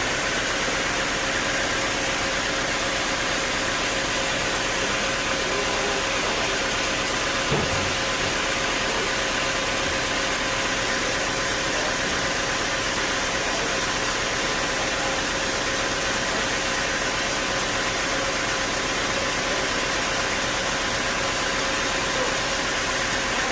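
Sawmill machinery running steadily, a constant loud noise with a faint steady hum. There is a single knock about seven and a half seconds in.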